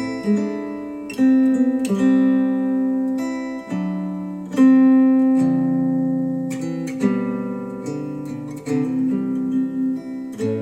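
Acoustic guitar music, plucked notes and chords each ringing out after a sharp attack, played back through Wharfedale Denton 80th bookshelf speakers driven by a Sony STR-DH190 amplifier.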